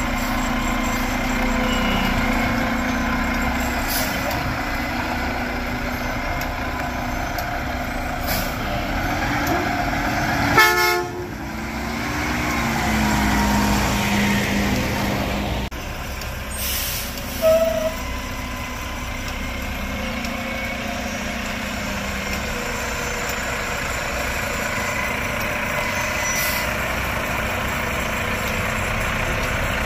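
Mack MRU front-loader garbage truck's diesel engine running at raised revs while the Heil hydraulics work the arms and packer, with a steady hum. About ten and a half seconds in comes a sudden loud blast of air like an air brake, followed by a gliding tone as the hydraulics load up. The engine settles lower a few seconds later.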